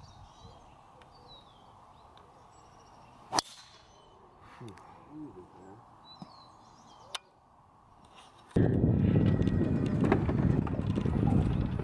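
A driver striking a golf ball off the tee: one sharp crack about three and a half seconds in, with birds chirping faintly before it. From about eight and a half seconds in, a steady, much louder rumble of a golf cart on the move.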